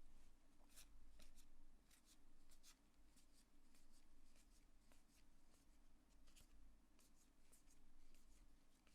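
Faint soft swishes and ticks of cardboard baseball cards from a freshly opened 1990 Leaf pack being slid off one by one, a few every second, over a low steady electrical hum.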